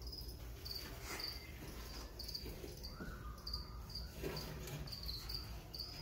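Feeder crickets chirping, short high chirps about twice a second, over a low steady hum.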